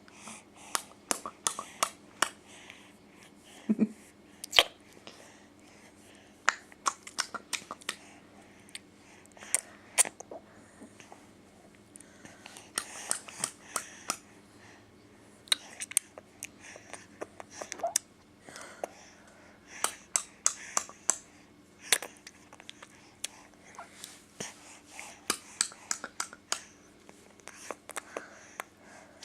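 A baby making clicking and smacking noises with her mouth and gums, in irregular clusters of sharp clicks, with one short low voiced sound about four seconds in.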